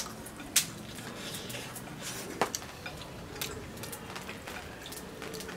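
Eating at the table: chopsticks clicking against rice bowls, a few sharp separate clicks over a low background.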